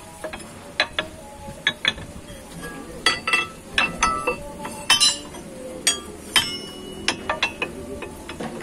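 Metal hammer blades of a sand grinding hammer mill clinking and knocking against the rotor's shafts and discs as they are handled and fitted by hand. The clinks are sharp, irregular and ring briefly.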